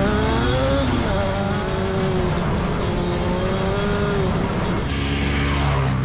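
Off-road vehicle engine revving up and down as it drives along a sandy trail, with background music. About five seconds in, the engine's rising and falling pitch fades and the music's steady low notes take over.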